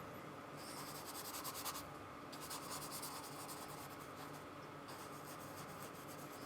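Paintbrush brushing acrylic paint onto the painting surface in three stretches of quick short strokes, with short pauses between them.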